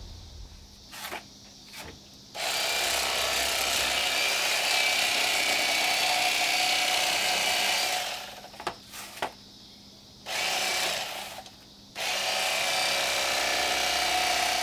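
Electric fillet knife cutting walleye, its motor running steadily in on-and-off runs: one starting about two seconds in and lasting several seconds, then two shorter ones near the end. A few light knocks fall in the gaps between runs.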